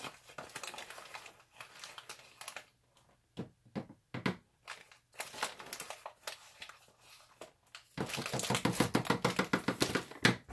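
Plastic crinkling and rustling as packaging and a plastic container are handled, in scattered crackles with short pauses, turning into a dense run of rapid crackling for the last couple of seconds.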